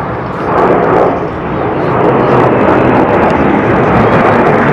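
Loud jet engine noise from two military jets flying past in formation. It swells over the first two seconds, then holds steady.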